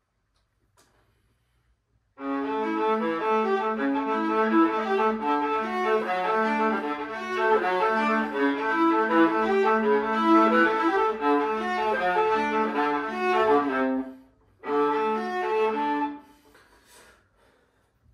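Solo violin bowed: after a short silence, a long phrase of held notes begins about two seconds in, breaks off briefly, and resumes for a short phrase that stops near the end.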